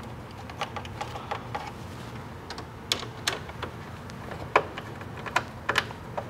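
Irregular small clicks and taps of a screwdriver and wire against the metal parts of a household breaker panel as the sensor's common (neutral) wire is fastened in, over a faint low hum.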